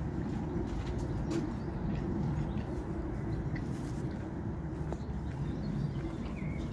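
A flock of chickens murmuring low and continuously, with a couple of short, higher bird chirps near the end.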